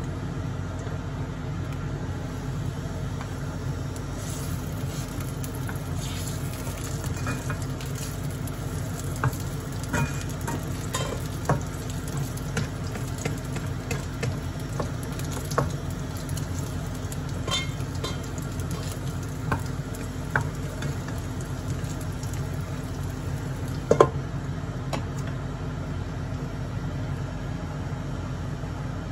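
Hamburger steak patties sizzling and crackling in oil in a nonstick frying pan, with scattered clicks as a spatula turns them, over a steady low hum. One loud sharp clack near the end as the metal pan lid is set back on.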